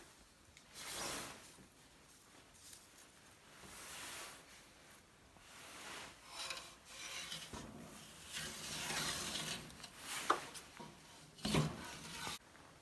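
Irregular rubbing and scraping from a fireplace door's gasket rope being pulled out of its groove, in bursts of a second or two. A short sharp click comes about ten seconds in and the loudest rub just after it.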